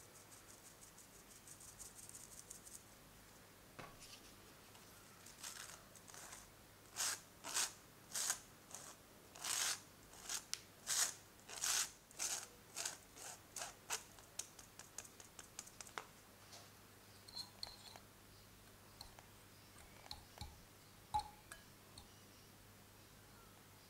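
Dry almond flour, powdered sugar, cocoa and coffee powder being worked through a fine-mesh metal sieve: faint quick ticking, then a run of loud scratchy strokes at about two a second. Near the end come lighter, sparser scratches as a whisk stirs the dry powder in a glass bowl.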